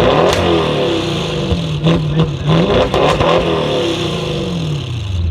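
Audi RS6 engine revving: its pitch climbs sharply right at the start, then rises and falls several times, with a handful of sharp exhaust crackles between about two and three and a half seconds in.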